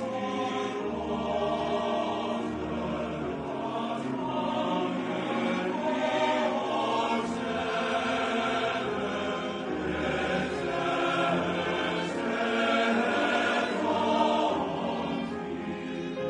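Choral music: a men's chorus singing held harmonies.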